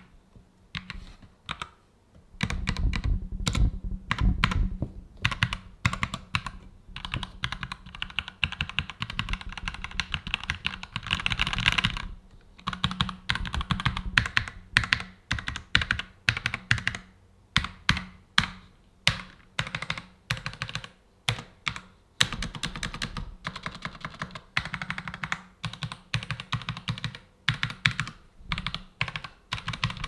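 HyperX Alloy MKW100 mechanical keyboard with red linear switches being typed on: a few single keystrokes, then fast continuous typing from about two seconds in, then slower, separate key presses with short quick runs.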